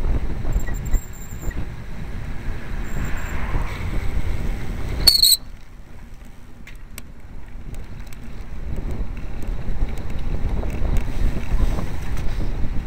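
Wind rushing over the microphone of a camera riding on a road bike in a group of cyclists, a steady low rumble. About five seconds in there is a short high-pitched tone, then the wind noise drops sharply and light scattered clicks follow as the rumble slowly builds again.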